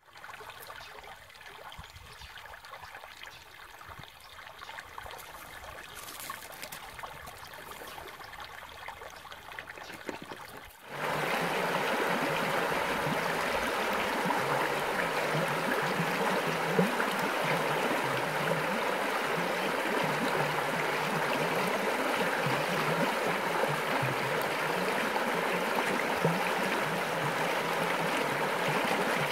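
Running water of a stream, an arroyo in flow. It trickles fairly quietly, then jumps suddenly to a louder, fuller rush about eleven seconds in and stays steady.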